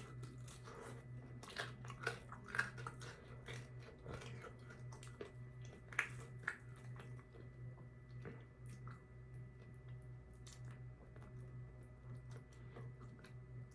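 A person chewing and biting food close to the microphone, with crunchy clicks that are densest in the first few seconds and again around six seconds in. A steady low hum runs underneath.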